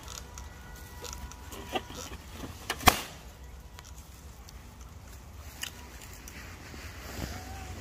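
A rubber party balloon popping with one sharp bang about three seconds in, over a steady low outdoor rumble. A few soft clicks come before it, and a faint short squeak comes near the end.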